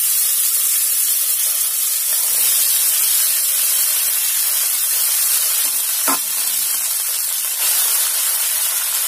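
Rice sizzling in hot oil in a wok as it is tipped in and spread, a steady hiss, with one sharp knock about six seconds in.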